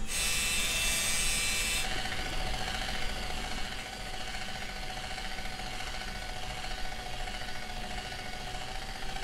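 Steady machine-like hum with a thin whine. For about the first two seconds a brighter hiss with high whining tones sits on top, then it stops and the hum runs on.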